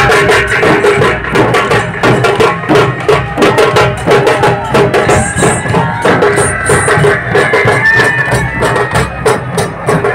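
Dhol drums beaten with sticks in a fast, driving rhythm of many sharp strokes a second.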